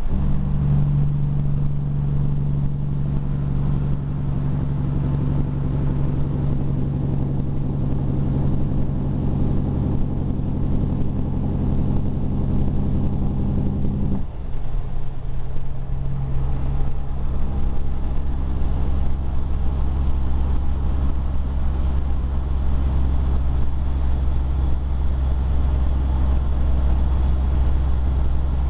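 Vehicle engine and road noise heard from inside the cab while driving at highway speed, steady and loud. About halfway through, the engine note drops abruptly to a deeper drone.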